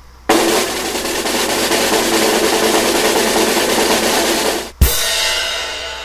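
Snare drum roll lasting about four and a half seconds, ended by one sharp crash hit that rings and fades away: a drum-roll sound-effect sting.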